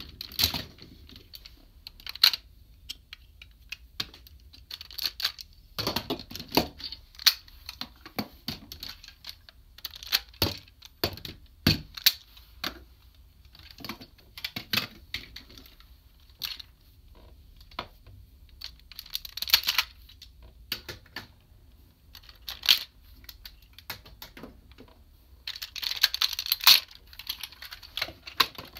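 Hard plastic parts of a DX Kyuranger robot toy being pulled apart, turned and snapped into place: irregular clicks, clacks and light rattles, with two spells of denser clattering, about two-thirds through and near the end.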